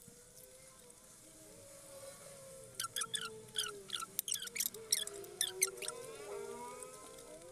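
Eating sounds: a quick run of sharp mouth clicks and smacks from about three to six seconds in, over a faint wavering hum.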